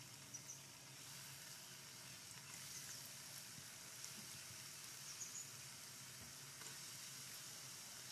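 Prawn rolls deep-frying in hot oil: a faint, steady sizzle with a few light crackles.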